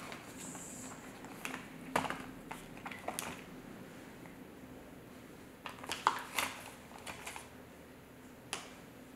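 Small plastic toys being handled: a few scattered light clicks and taps as tiny figures are picked out of a plastic tub and set down on a hard tabletop, with a small cluster of taps about six seconds in.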